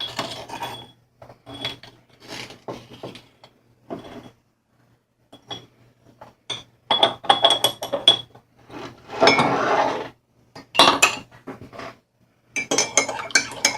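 A metal spoon clinking against a coffee cup as sugar is spooned into the coffee: a run of separate light clinks, some with a short ring, and a brief scraping rustle about two-thirds of the way through.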